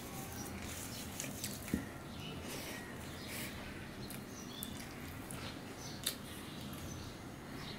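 Close-up eating sounds of a person eating okra in mustard curry by hand: soft chewing and wet lip smacks, with fingers working the food on a steel plate. Two sharper clicks stand out, about two seconds in and about six seconds in.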